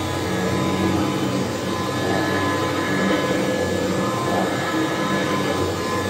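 Kirby Classic III upright vacuum cleaner running steadily while being pushed across the floor, its motor and fan giving a constant hum with a few fixed whining tones.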